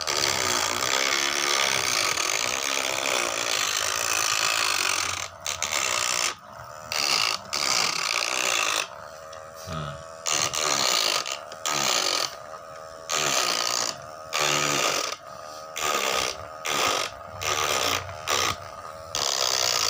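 Homemade engraving drill, a small electric motor from a hair clipper spinning a burr bit, grinding into a wooden board. It runs steadily for about five seconds, then comes and goes in short bursts of about a second or less.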